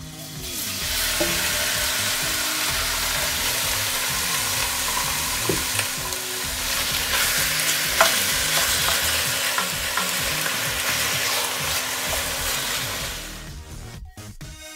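Chicken pieces sizzling as they sear in hot oil in a pot. The loud hiss starts about half a second in and dies down near the end, with a few sharp clicks, the loudest about eight seconds in.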